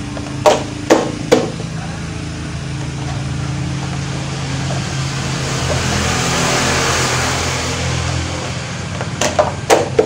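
Hard plastic knocks and clicks as the black air-filter cover of a pressure washer's gasoline engine is handled and fitted back on: three sharp knocks in the first second and a half, three more near the end. Between them, a steady engine-like hum grows louder toward the middle and fades again.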